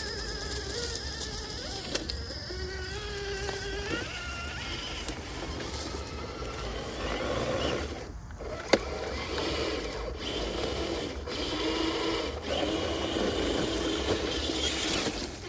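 Electric RC truck's motor and gears whining, the pitch wavering up and down with throttle, with one sharp click about nine seconds in.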